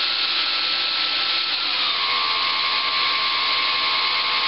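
A ParkZone Super Decathlon's brushless electric motor spins a three-blade 8x6 Master Airscrew propeller in a static thrust test, giving a steady whir with a thin whine. About two seconds in the whine drops in pitch as the throttle is eased back from full to about two-thirds.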